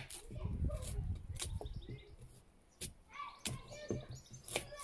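Kitchen knife cutting sweet potato on a plastic cutting board: sharp clacks of the blade striking the board about every second and a half. Birds chirp in the background, and a low rumble runs through the first second or so.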